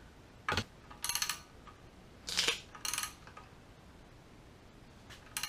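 Short metallic clinks and rattles of tools and valvetrain parts being handled on an aluminium engine cylinder head: five brief bursts, two of them quick runs of ticks about one and three seconds in.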